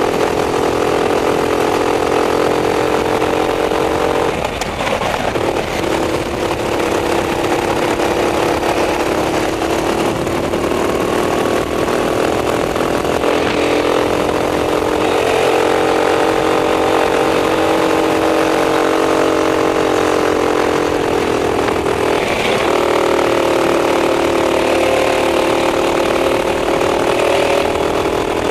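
Racing kart engine at race pace, recorded onboard: the engine note holds high on the straights, drops sharply under braking about four seconds in and again just past twenty seconds, then climbs back as the throttle comes on.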